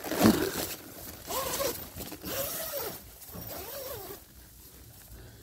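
Nylon tent-door zipper being pulled along its track in several short strokes: a loud first pull at the start, then three shorter pulls, each rising and falling in pitch.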